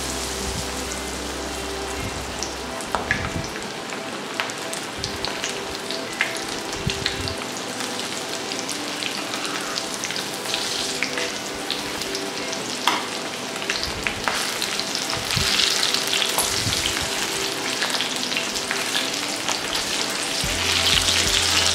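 Sweet corn kernels coated in corn flour and rice flour deep-frying in hot oil in a stainless steel kadai: a freshly added batch giving a steady dense sizzle full of small pops and crackles as the moisture boils off. A slotted steel spoon stirs through the oil now and then.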